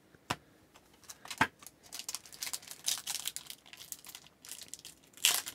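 Plastic wrapper of a hockey card pack crinkling as it is torn open and handled. Two sharp clicks come in the first second and a half, then scattered rustling, and a louder crinkle near the end.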